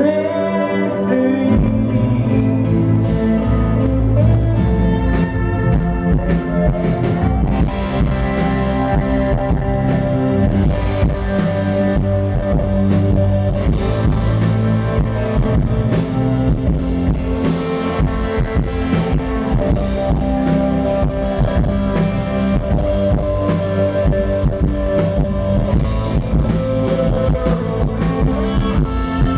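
Rock band playing live without vocals: sustained electric guitar chords over bass and drums. The drums fill in and grow busier a few seconds in.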